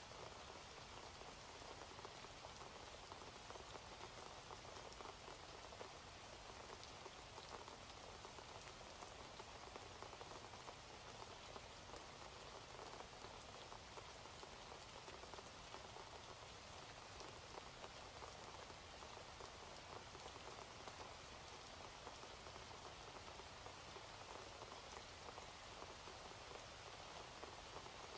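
Rain falling steadily, a faint, even patter of many drops.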